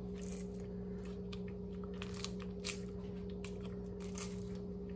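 Biting and chewing a frozen ice pop from its plastic sleeve: small crunches of ice scattered throughout, over a steady low hum.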